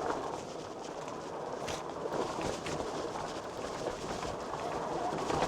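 Electric bike being ridden over a dirt single-track trail: tyres crunching and the bike rattling over rough ground with scattered clicks, and a faint electric-motor whine underneath.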